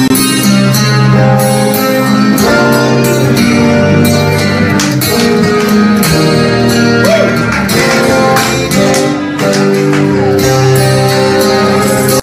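Two acoustic guitars playing an instrumental passage, strummed and picked, with light hand percussion keeping time.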